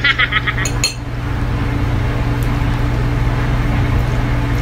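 A brief stifled laugh in the first second, then a steady low electrical machine hum with a constant pitch that fills the room.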